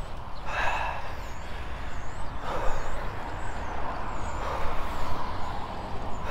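Wind buffeting an action camera's microphone on a moving road bike, a steady low rumble, with tyre hiss on the wet road that swells about two and a half seconds in.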